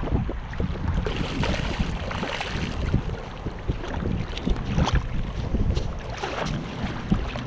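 Wind buffeting the microphone in a low, gusting rumble, with many short irregular knocks and scrapes over it.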